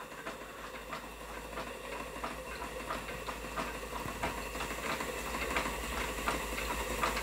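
Stuart Turner 10H model steam engine running under steam and driving a belt-connected plastic beam-engine water pump: a steady, even clicking about three times a second over a hiss of steam, slowly getting louder.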